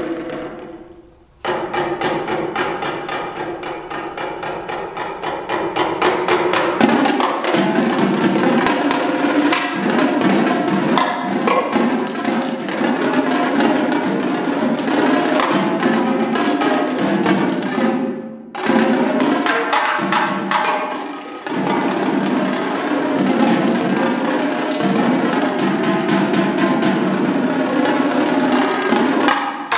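Marching tenor drums played with sticks in fast, dense runs of strokes across the pitched drums. The playing breaks off briefly about a second and a half in and again near 18 seconds, and stops right at the end.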